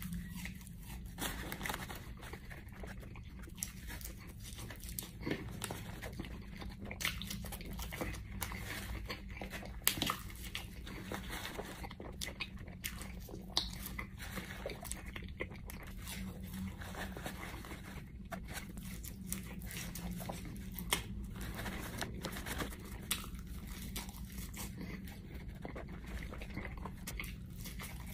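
Close-up chewing and mouth sounds of a man eating sauced boneless chicken wings, with irregular small clicks and crunches throughout.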